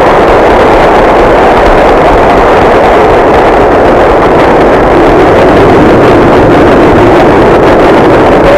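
Large crowd applauding steadily, a dense even clatter of clapping on an old, muffled recording, starting as the speech ends.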